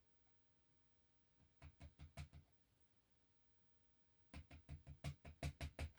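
Two runs of sharp knocks: about five close together, then after a pause about nine more in quick succession. The dimple lock is being knocked against a hard surface to shake its key pins out of the cylinder.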